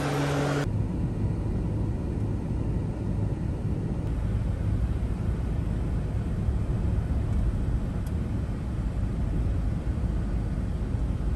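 Steady low rumble of a car driving, heard from inside the cabin. A bit of music at the start cuts off under a second in.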